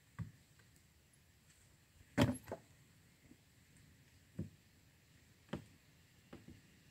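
About six sharp knocks, spaced irregularly a second or two apart, the loudest a quick double knock about two seconds in.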